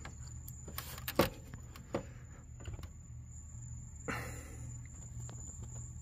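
A few light clicks and taps from hands working at a stuck Chevy S10 hood latch, with a short scrape about four seconds in, over a steady high trill.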